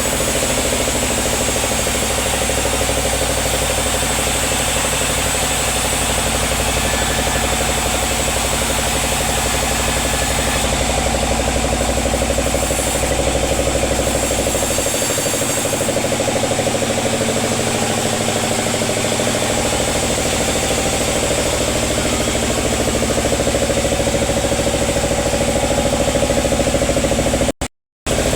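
Sawmill machinery running steadily, a continuous engine drone that cuts out briefly near the end.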